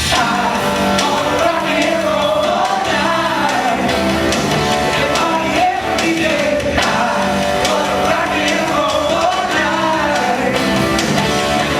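Rock music with a lead singer's voice wavering over a steady, loud backing.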